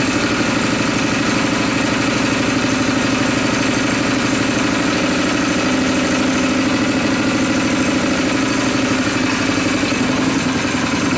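Honda 5.5 hp small engine running steadily at idle on HHO gas and rubbing-alcohol vapour, with a rapid even firing beat.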